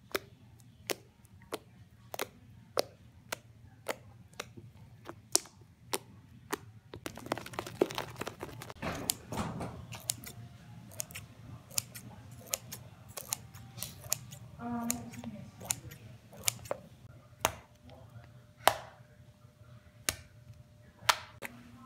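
Slime being squished, poked and cut by hand on a stone countertop, making a string of sharp wet clicks and pops, about two a second, with a denser stretch of squelching about seven to ten seconds in.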